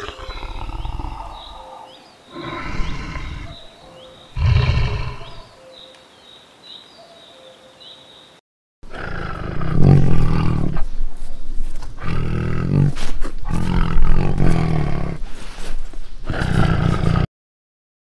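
Big cats roaring and growling: a lion gives three short roaring bursts, then after a brief break a leopard snarls and growls in a long, louder run that cuts off suddenly near the end.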